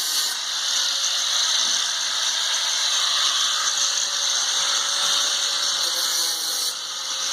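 A power tool running steadily on the stuck trailer-hitch fasteners, a loud even hiss with a faint steady whine under it.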